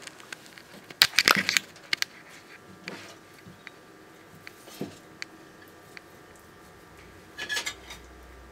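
Dumeril's monitor lizard chewing a feeder chick. A quick run of sharp, cracking crunches comes about a second in, the loudest part. A few single crunches follow, and another short run comes near the end.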